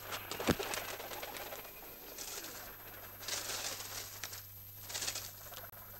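Domestic pigeons cooing, with a sharp knock about half a second in and a couple of bursts of rustling.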